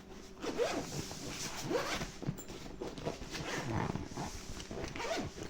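Zipper on a tool carrying case being pulled open in several short strokes, each a quick buzz that rises in pitch as the pull speeds up.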